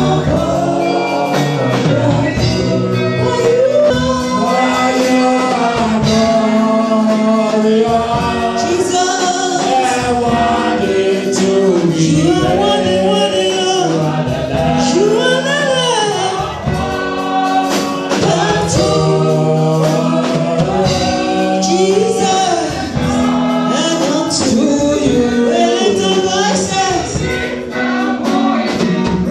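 Gospel worship song sung by a group of male and female voices over instrumental accompaniment, held and sliding sung notes.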